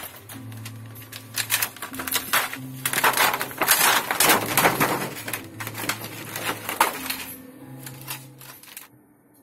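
Thin plastic reflector sheet from an LED TV's backlight crackling and rustling as it is bent and lifted out of the housing: a dense run of sharp crinkling clicks, loudest in the middle, fading out near the end.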